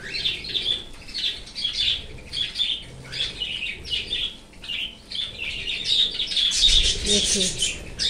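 Small aviary parrots, cockatiels among them, giving quick short chirps and squawks, several a second, growing into a busier chatter about six seconds in as they squabble over a green leaf.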